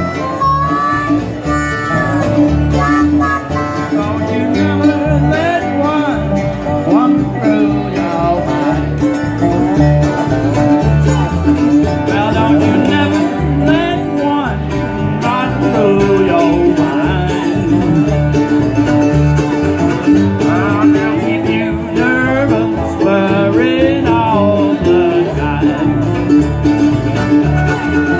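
Acoustic blues band playing live: a dobro solo of sliding, bending notes over acoustic guitars and upright bass.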